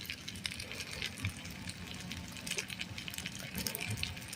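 Cooking fire of wood crackling, with scattered sharp pops over a low steady rumble.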